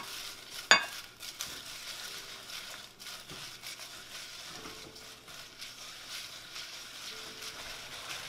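Dried chiles de árbol sizzling steadily as they toast in a little hot oil in a small saucepan, stirred with a spatula. Two sharp knocks in the first second.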